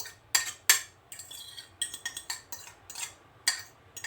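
A metal utensil clinking and scraping against a bowl while a banana is mashed in it: irregular sharp clinks, about two a second.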